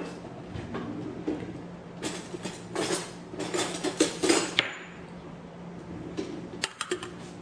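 Kitchen dishes clattering against a countertop and a stainless steel pot. There is a run of clattering a couple of seconds in, then a few sharp clinks near the end.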